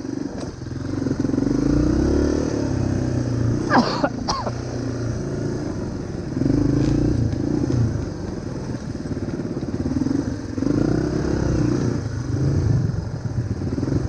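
Dirt bike engine running under throttle on a trail ride, swelling and easing off in repeated surges every couple of seconds as the rider works the throttle.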